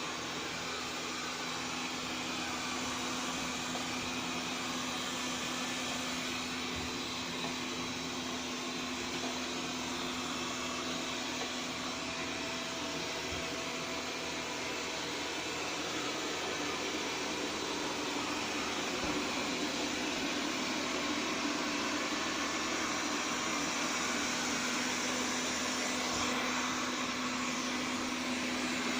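Xiaomi Mi Robot Vacuum-Mop P running: a steady motor and suction-fan hum with a constant low tone, growing a little louder near the end.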